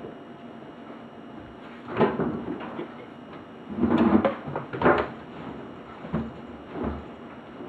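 Damp laundry being handled at an open tumble dryer drum: fabric rustling with irregular bumps and knocks against the drum and door, loudest about four seconds in.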